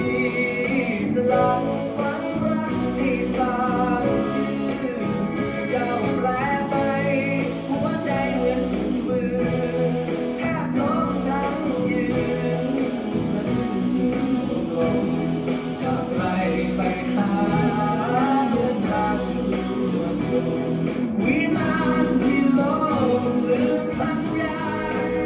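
A Thai song sung with guitar accompaniment: a steady run of singing over strummed or plucked guitar.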